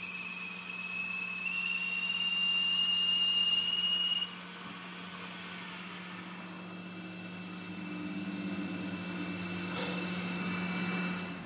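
Metal lathe boring out a steel workpiece, the cutting tool squealing with a loud high-pitched whine that steps up slightly in pitch, then stops abruptly about four seconds in. After that only the lathe's steady low motor hum is left.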